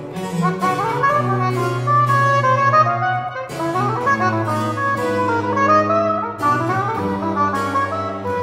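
Baroque oboe playing quick running phrases that rise and fall, over a basso continuo of baroque cello and harpsichord.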